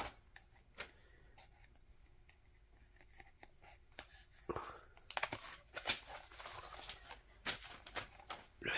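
Hands handling a thick cardboard board book, fingers scraping and tapping on the card pages and pulling up a lift-the-flap. Faint, with a run of small scrapes and clicks starting about halfway through.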